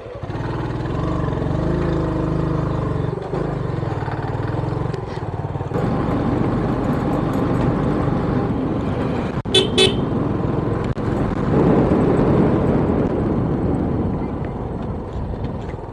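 Motorcycle engine running steadily on the move, with two quick horn toots about ten seconds in.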